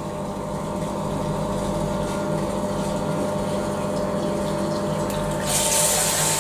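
Two stainless-steel submersible drainage pumps running steadily with a constant hum, pumping the last shallow water out of a flood-testing tank. About five and a half seconds in, a loud hiss joins the pump hum.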